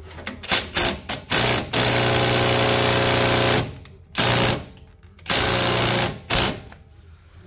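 Cordless impact wrench hammering on a tight rear CV joint bolt. It fires in several short bursts, then a long run of nearly two seconds, then two more bursts.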